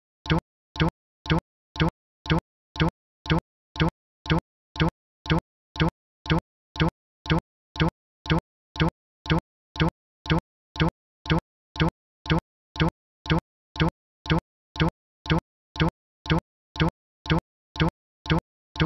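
Short, identical pops repeating evenly about twice a second with silence between: a stuck fragment of the audio track looping like a glitch.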